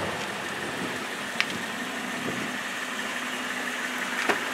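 A vehicle engine idling with a steady hum, with a single sharp click about a second and a half in and a light knock near the end.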